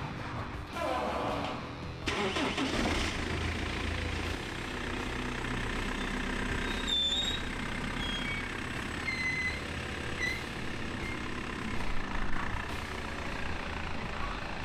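BMW E46 car engine starting about two seconds in, then running steadily as the car pulls away.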